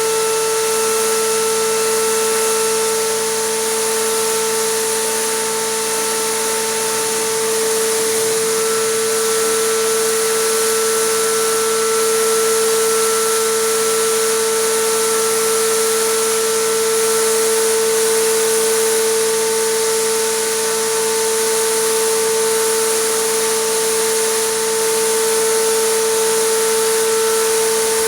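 Air compressor running steadily with a constant high hum, with the even hiss of compressed air spraying acrylic resin.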